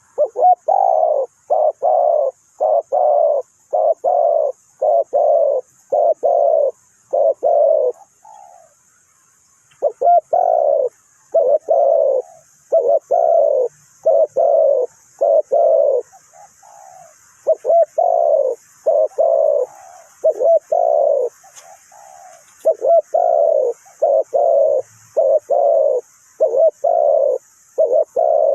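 Spotted dove cooing: a long series of short, loud coos, about one and a half a second, in runs broken by brief pauses.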